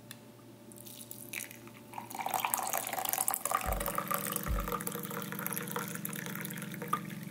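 Coffee pouring from a French press into a glass mug, a trickling, splashing stream that builds as the mug fills. Low music comes in underneath about halfway through.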